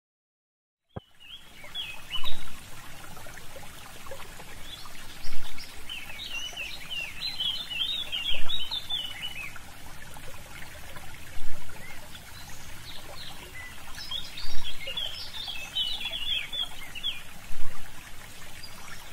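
Small birds chirping and twittering in busy bursts over a steady rushing, water-like noise, starting about a second in. A short low thump comes about every three seconds and is the loudest sound.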